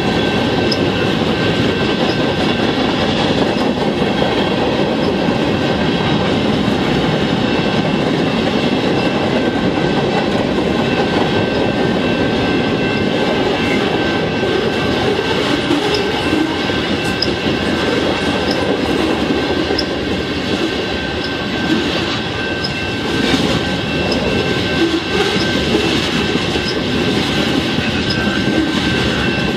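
Freight cars of a mixed manifest train (tank cars, covered hoppers, a centerbeam lumber flatcar) rolling past at a grade crossing. The wheels give a loud, steady rumble and clatter over the rails, with thin steady squealing tones above it.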